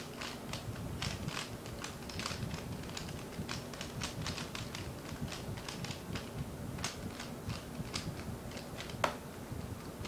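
A ZhanChi 3x3 speedcube turned rapidly by hand, a quick irregular clatter of plastic layer clicks as the cube is scrambled for the next attempt. A sharper, louder click comes about nine seconds in.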